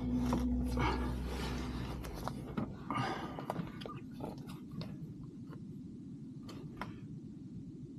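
Irregular clicks and short scrapes of hand tools and parts being handled while new glow plugs are fitted to the engine, busiest in the first few seconds and sparser after.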